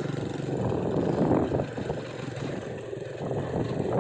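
ATV engine running, its level swelling and then dropping back a little past the first second.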